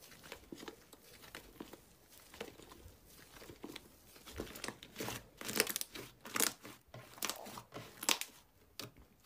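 Hands pressing and folding slime, making irregular crackling and clicking sounds that grow louder about halfway through.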